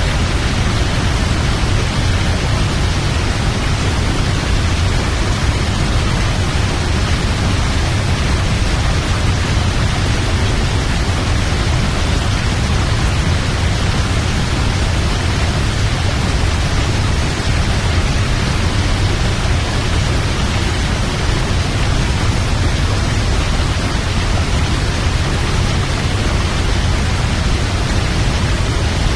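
Large waterfall: a steady, loud rush of falling water, heavy in the low end, unchanging throughout.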